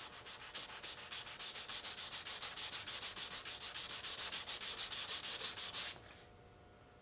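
320-grit sandpaper rubbed by hand across the plastic edge of a model starship saucer in rapid, even back-and-forth strokes, smoothing down a hard glue line at the seam between the saucer halves. The sanding stops about six seconds in.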